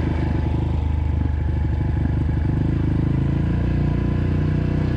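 Dirt bike engine running steadily while the bike rides along, heard from on the bike.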